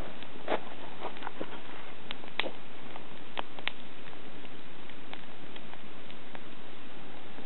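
Wood campfire crackling: a steady hiss with scattered sharp pops and snaps, most of them in the first four seconds and fainter ones after.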